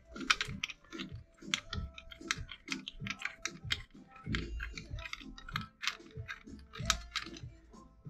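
Ratchet wrench clicking in quick, uneven runs as a 3/4-inch socket spins an already loosened steering-wheel retaining nut off a 1962 Chevy Impala's steering shaft.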